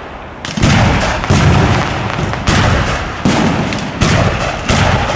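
Aerial firework shells bursting, seven sharp booms at irregular intervals, each trailing off in a rolling echo.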